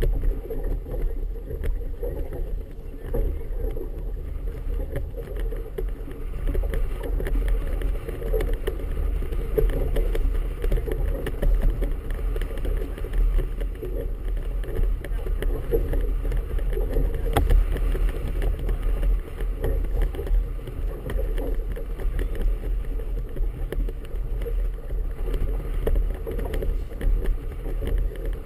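Steady, muffled low rumble of wind and choppy water around a small boat riding at a mooring, with most of the sound in the low range.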